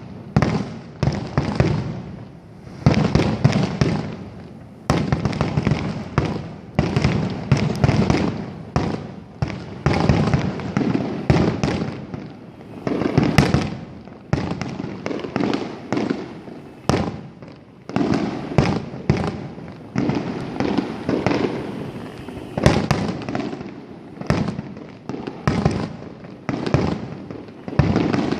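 Aerial fireworks in a finale barrage: shells bursting in quick, irregular succession, several a second, each a sharp bang followed by rumbling echo, with crackling among them.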